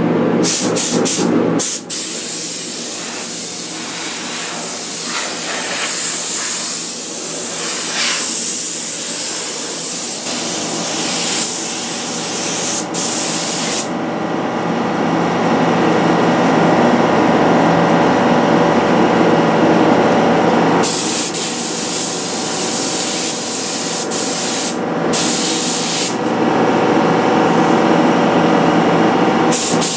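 Airbrush spraying paint onto a motorcycle tank: a hiss that stops and starts, with short breaks and a quieter stretch midway, over a steady low hum.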